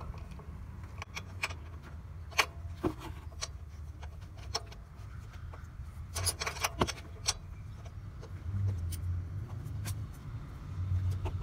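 Ratchet and 15 mm socket on a serpentine belt tensioner pulley bolt, fitted and turned to slacken the belt. Scattered metal clicks and clinks, several close together about six to seven seconds in, over a low steady rumble.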